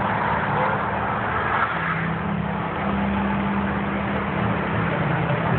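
Steady rumbling of the Mirage's man-made volcano show erupting, with a low droning tone underneath that shifts pitch a couple of times.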